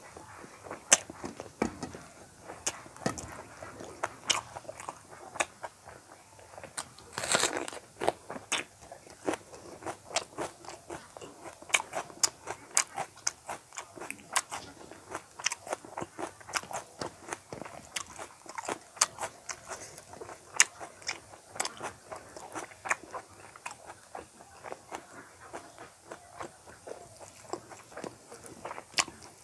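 Close-miked chewing and biting of rice and curry eaten by hand, with many sharp, irregular wet mouth clicks and smacks. A louder, denser crunchy stretch comes about seven seconds in.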